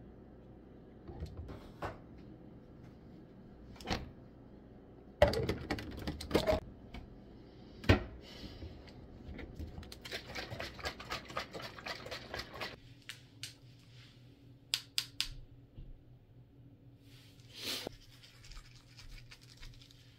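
Clicks, knocks and rattles of a plastic supplement bottle and a large plastic water jug being handled, with two sharp knocks about five and eight seconds in and a dense run of quick clicking and rattling from about ten to thirteen seconds in.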